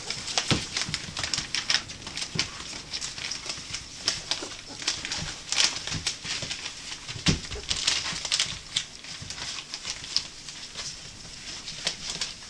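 A litter of 18-day-old golden retriever puppies moving about, with many quick scratchy clicks and rustles and no sustained howling.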